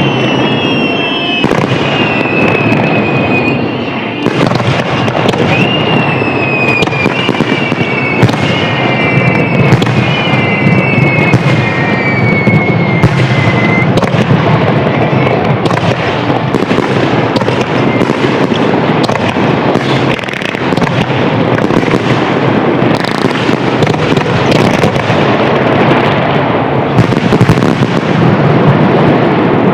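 Fireworks display in a dense, continuous barrage of bangs and crackling. Through the first half several whistling shells sound, each gliding down in pitch.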